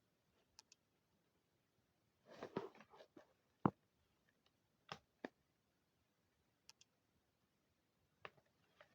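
Quiet handling noises. A short crackly rustle comes about two and a half seconds in, then one sharp click, then a few faint scattered clicks, as snacks and their packaging are handled during a crisp tasting.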